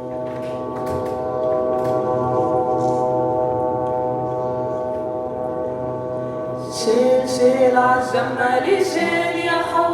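Recorded buzz of a military surveillance drone (the 'zanana') over Gaza: a steady, unchanging hum with many even overtones. About seven seconds in, voices start singing over it, the buzz carrying on beneath them as a backing drone.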